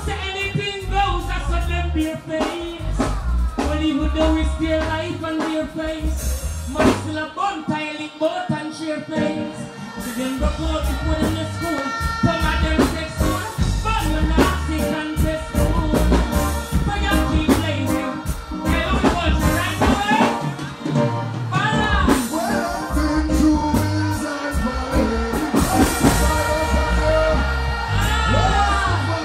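Live reggae performance over a concert PA: a male vocalist singing and chanting into a microphone over a heavy bass-and-drum rhythm, with the bass cutting out briefly twice.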